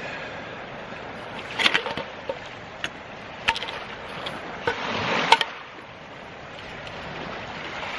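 Parts of a compact canister gas stove, an APG cup-and-burner set, being unpacked and handled: a handful of short, light clinks and knocks spread over several seconds, over a steady background hiss.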